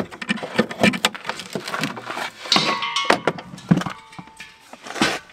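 Gear being handled in the rear cargo area of an SUV: a run of knocks, clunks and rustles as a cargo panel is moved and a plastic bucket is lifted out.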